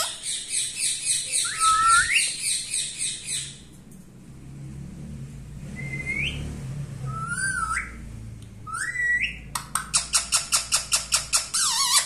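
Indian ringneck parakeet calling: a fast run of repeated shrill squawks, then a few short rising whistled notes, then another quick burst of sharp screeches near the end.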